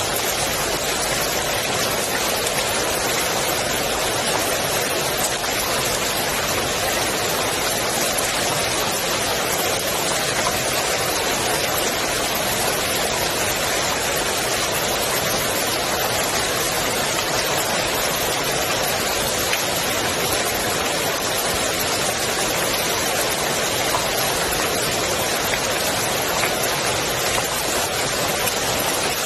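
Steady rain falling on the water of a swimming pool, a dense even hiss of drops.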